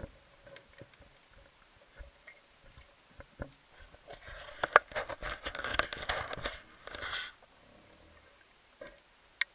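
Underwater noise heard through a diving camera: scattered sharp clicks, then about three seconds of crackling, rushing water noise from about four seconds in, ending abruptly.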